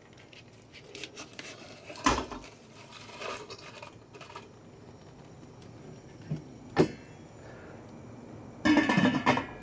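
Stainless steel pots clinking as a small pot is lowered into a large stock pot, with a sharp clank about seven seconds in. Near the end the stock pot's lid is set down with a loud metallic clatter and ring.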